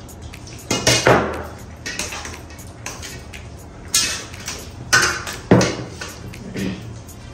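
Hands scooping and scraping rice on steel plates, with several sudden clatters and knocks and a water glass set down on the table, amid fast eating noises.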